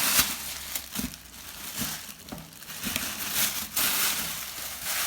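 Packaging crinkling and rustling in uneven bursts as boxed toy cars are handled and unpacked, with a few light knocks.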